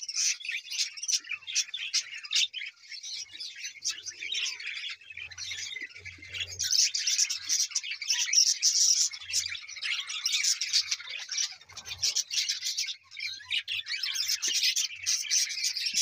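A flock of budgerigars chattering and chirping all at once in a dense, continuous stream of overlapping high calls, swelling louder about halfway through and again near the end.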